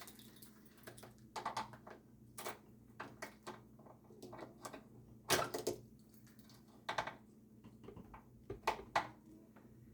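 Scattered clicks and knocks from an antique cash register drawer and its small metal fittings being handled, the loudest about five seconds in, over a faint steady hum.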